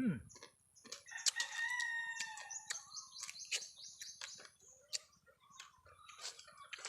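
A rooster crowing once, one long call of about two seconds starting about a second in, over scattered crunchy clicks of someone chewing crab.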